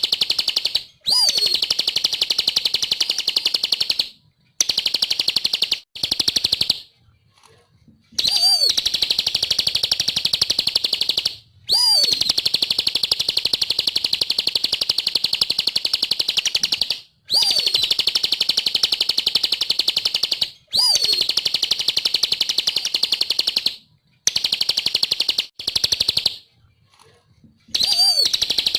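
Bar-winged prinia (ciblek) singing, with repeated long runs of very fast chattering notes. Several runs open with a quick rising whistle, and short pauses separate them.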